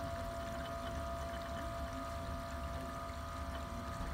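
Chilled wort pouring in a steady stream from a plate chiller's outlet hose into a plastic fermenting bucket, over a steady hum.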